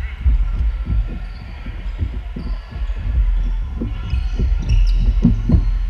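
Dull, irregular low thuds, several a second, over a deep steady rumble: players' feet and dodgeballs striking the floor of a sports hall during dodgeball play.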